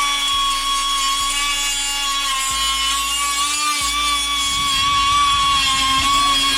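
Handheld power tool running at speed with a steady, high whine, its pitch wavering slightly.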